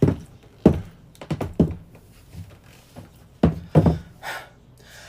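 Heavy thuds of high platform boots stepping across a wooden floor, several irregularly spaced steps that stop about four seconds in.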